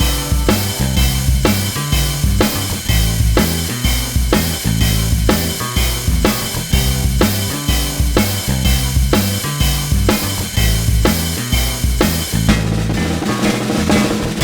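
Background music with a steady drum-kit beat, about two hits a second, over a bass line.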